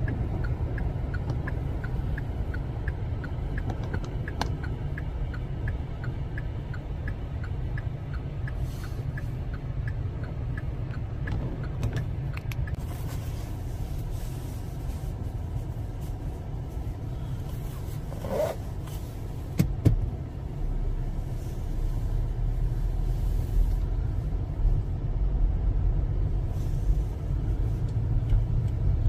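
A car's engine and tyre rumble heard from inside the cabin as it rolls slowly. For the first part there is a light, regular ticking, about two ticks a second. Past the middle comes a short squeak, then a knock, and the low rumble grows louder as the car moves off.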